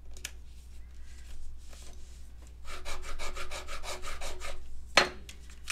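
Hands rubbing back and forth over a paper card on the desk, pressing a freshly glued piece down: a quick run of scratchy strokes, about eight a second, for about two seconds, then one sharp tap.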